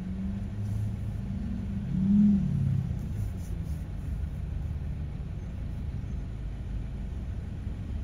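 Pickup truck engines rumbling steadily as trucks drive through a shallow creek, with one engine revving up and falling back about two seconds in.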